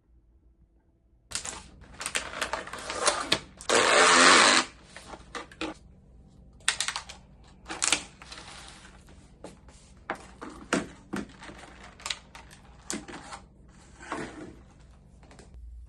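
Plastic packaging and food containers being handled: irregular rustling with light clicks and knocks, starting about a second in. The loudest burst of rustling comes around four seconds in.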